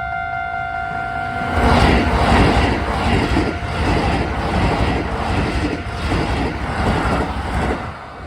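Level crossing alarm ringing steadily; about a second and a half in, a Keisei Line train rushes through the crossing with a rhythmic clatter of wheels over rail joints for about six seconds, then fades near the end.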